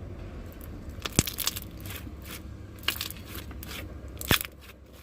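Crunchy slime with foam beads squeezed and poked by hand, giving a string of crackles and sharp pops, the loudest about a second in and again just after four seconds.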